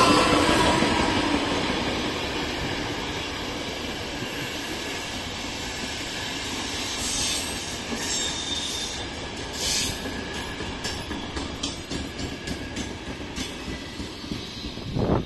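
A train passing on the tracks close by. It is loudest at the start, with a whine that falls slightly in pitch, then a steady rumble of wheels on rail. Through the middle come a thin high wheel squeal and a run of sharp clicks over the rail joints, and the sound fades near the end.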